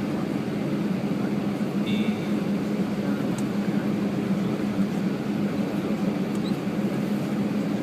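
Steady droning hum inside an Airbus airliner's cabin with the engines and air systems running at a constant, unchanging level. A brief high tone sounds about two seconds in.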